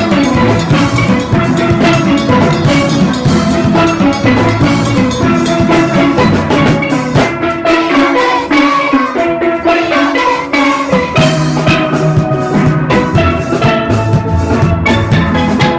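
A steel orchestra playing a fast soca arrangement, with many steel pans struck with sticks over a drum kit. The low end drops out for a few seconds midway, then comes back in.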